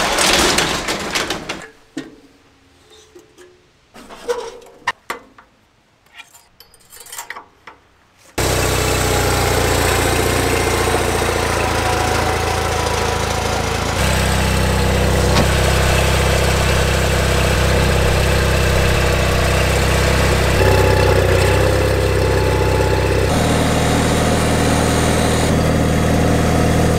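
An overhead garage door is rolled up by hand, followed by a few seconds of quiet with scattered knocks. About eight seconds in, a steady music track starts abruptly, with a lawn tractor's engine running under it.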